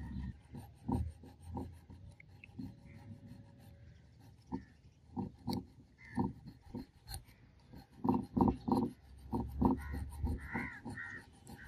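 A small hand file scraping across the threads of a steel screw in short, irregular strokes, coming faster and closer together near the end.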